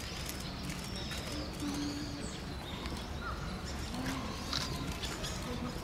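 Wild birds calling in short high chirps, with a dove cooing low a couple of times, over a steady low background rumble.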